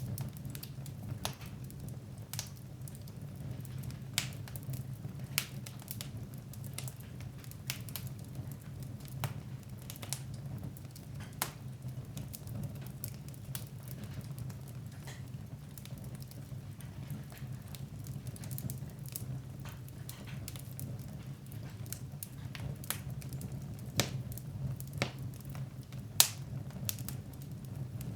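Fireplace fire burning: irregular sharp crackles and pops over a steady low rumble, with one louder pop near the end.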